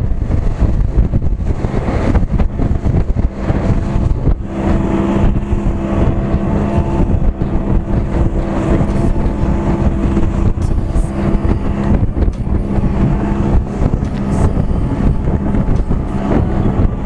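A small fishing boat's engine runs steadily at speed across choppy sea, its hum settling about five seconds in. Wind buffets the microphone and water rushes against the hull.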